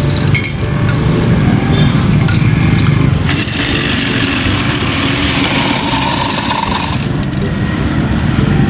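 Electric ice shaver shaving ice cubes: a harsh grinding hiss from about three seconds in until about seven seconds in, as the lever presses the cubes onto the spinning blade, over a steady low hum.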